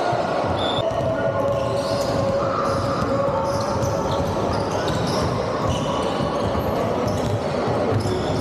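Basketball being dribbled on a wooden sports-hall court, with rubber-soled shoes squeaking as players run the ball up the court, all echoing in the large hall.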